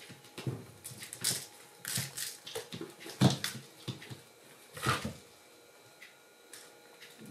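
A kitten clawing and batting at a lace curtain and a dangling toy: irregular rustling and claw scrapes with soft paw thumps, the loudest about three seconds in and another near five seconds.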